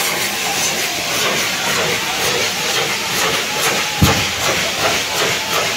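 Fireworks spraying showers of sparks with a steady hiss and crackle, and one sharp bang about four seconds in.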